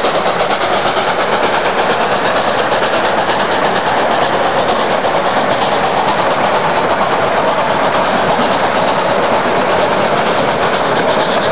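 Narrow-gauge train cars rolling past, steel wheels clicking and rattling steadily over the rail.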